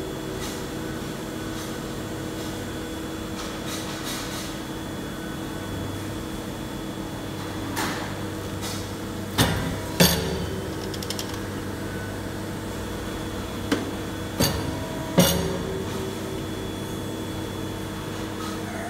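Hydraulic silicone embossing press running with a steady hum from its hydraulic unit, broken by about six sharp metal clunks from the machine being worked, the loudest around ten and fifteen seconds in.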